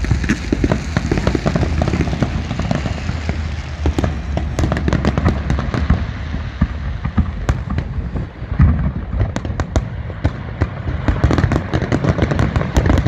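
Fireworks display: a dense, continuous barrage of sharp cracks and crackling over a low rumble of shell bursts.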